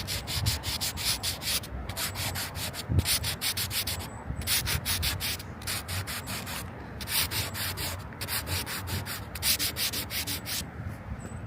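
Rapid rough scraping, about five strokes a second with a few short pauses, from crossing a frost-covered bridge deck.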